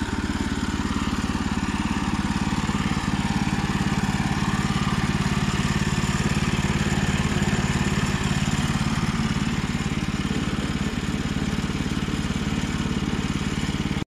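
Small gasoline engine of a portable bandsaw sawmill running steadily at an even speed.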